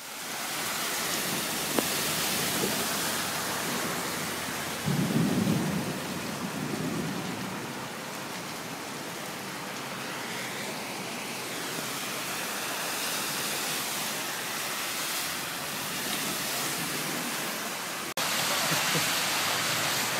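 Heavy downpour of a flash-flood storm pouring down steadily, with a low rumble about five seconds in. The rain noise steps up abruptly near the end.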